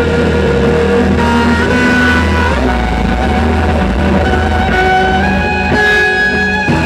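Electric guitar played through effects pedals: long sustained notes, with a slow upward glide about two and a half seconds in, over a steady low drone.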